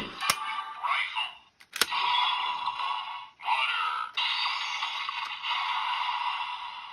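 DX Magnum Shooter 40X toy's electronic sound effects and recorded voice playing through its small built-in speaker, calling out "Water" for the fitted Water Raise Buckle. Two sharp plastic clicks from the toy being worked come in the first two seconds.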